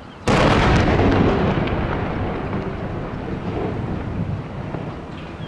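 Explosive demolition charges firing to implode a tall concrete smokestack: one sudden loud boom about a quarter second in, followed by a long rumble that slowly fades.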